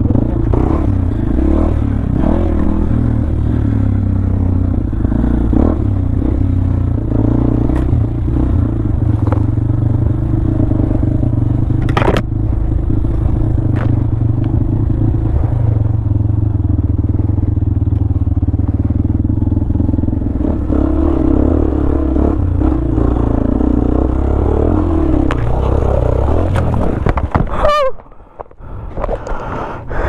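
Honda CB500X's parallel-twin engine running steadily at low speed up a rutted dirt trail, with knocks and scrapes from the bike over the ruts and one sharp knock about twelve seconds in. Near the end the engine sound cuts out abruptly as the bike goes down.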